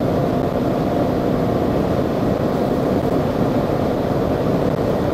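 VW Golf 8 2.0 TDI four-cylinder diesel heard from inside the cabin, accelerating in sixth gear just past 200 km/h. It pulls steadily near 4,000 rpm in one even, unbroken drone.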